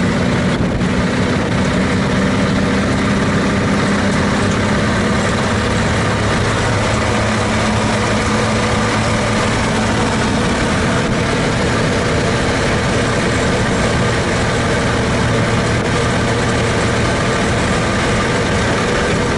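1933 Chevrolet truck's 194 cubic-inch six-cylinder engine running steadily while the truck drives, heard from inside the cab.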